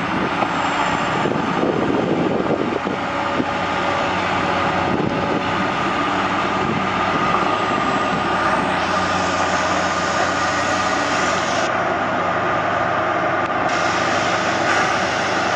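Steady, loud engine noise from a large machine, running without a break. The higher part of the sound drops out for about two seconds near the end.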